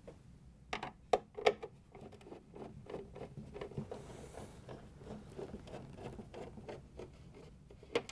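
A 1/4-inch nut driver backing screws out of a plastic ice container: a few sharp clicks about a second in, then a run of quick small ticks and scrapes as the screws turn, and another sharp click near the end.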